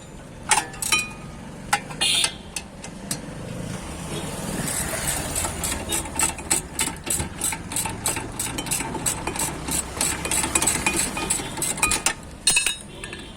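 A few sharp metal clinks, then from about four seconds in the Hyundai Grand i10 runs for about eight seconds with a fast, even clicking over it. The clicking is the front wheel noise being checked.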